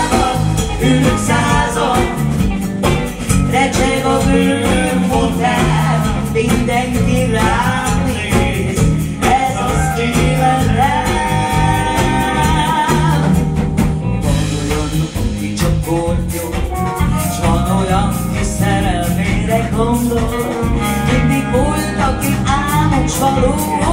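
Live band playing a jazzy song with drums, bass, electric guitars and a saxophone. The saxophone carries the melody in the second half.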